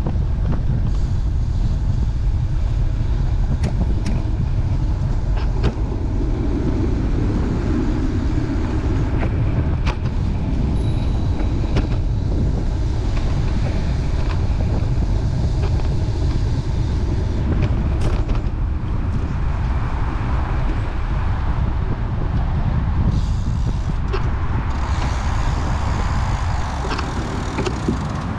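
Steady low rumble of road traffic mixed with wind buffeting the microphone, with a few sharp ticks.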